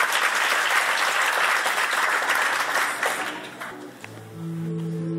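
Small audience applauding, the clapping fading out about three and a half seconds in; acoustic guitar music then begins near the end.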